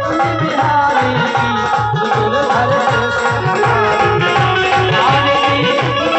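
Instrumental passage of a Hindi devotional aarti song: a steady, fast drum beat under a gliding melodic lead.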